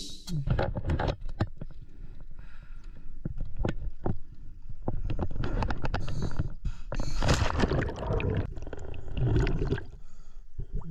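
Harbour water splashing and sloshing close to the microphone, with scattered knocks and scrapes.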